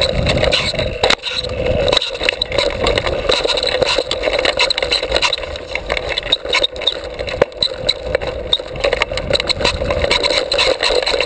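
Mountain bike riding fast over a dirt trail, heard from a camera mounted on the bike: steady tyre and rushing noise with constant rattling and knocks from bumps over the ground.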